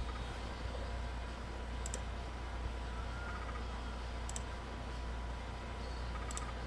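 Computer mouse clicking three times, about two seconds apart, over a steady low hum.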